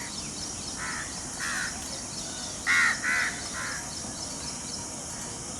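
Crows cawing: five short, harsh calls, the two loudest close together about three seconds in.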